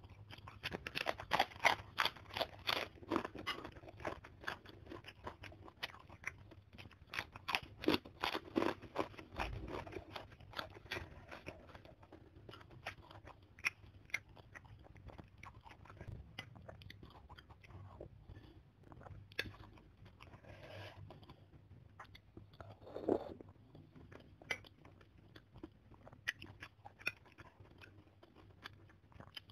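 Close-miked crunching of a fried kerupuk cracker being bitten and chewed: dense, sharp crunches for the first dozen seconds, then slower, quieter chewing with scattered crunches.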